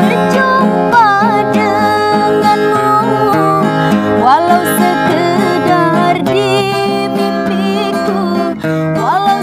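A woman singing an Indonesian ballad, her voice sliding between notes, accompanied by a man playing an acoustic guitar.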